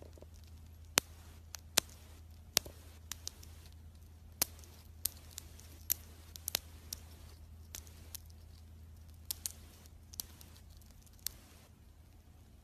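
Irregular sharp little clicks and ticks, about one or two a second, over a low steady hum.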